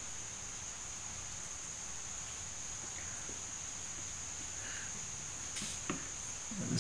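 Steady high-pitched trill of crickets, with a brief rustle near the end.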